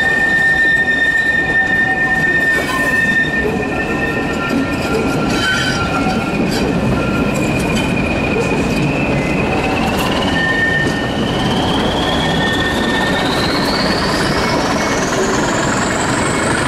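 Wheels of a diesel-hauled passenger train squealing against the rails on a curve, with high steady tones over the continuous running noise of the train, heard from an open coach window. In the second half a high whine rises steadily in pitch.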